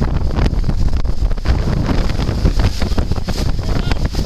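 Wind buffeting the microphone in loud, irregular gusts on a moving sailboat, with rushing water beneath.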